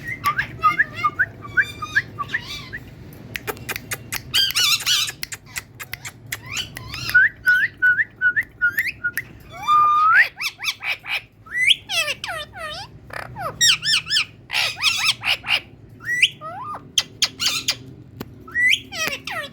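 Pet parrot calling: a rapid string of short chirps and whistled notes, broken by harsh screeches.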